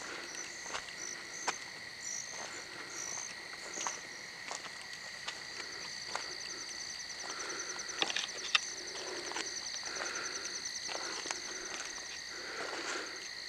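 Crickets and other night insects trill steadily at several pitches. A fast pulsed chirping joins in about halfway through, and faint clicks and scuffs are scattered throughout.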